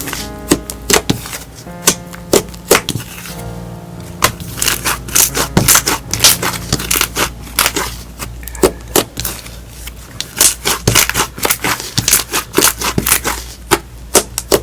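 Hands squeezing and poking clear slime, making many sharp, irregular crackling pops and clicks, over background music.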